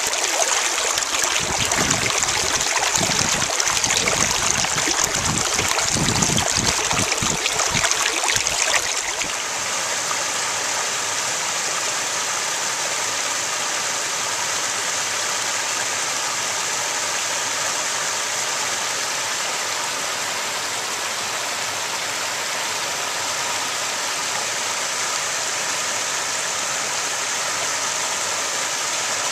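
Creek water rushing and splashing over rock ledges in a small cascade. For the first nine seconds or so it is choppier, with uneven low rumbling on the microphone. About nine seconds in it settles into a steady, even rush.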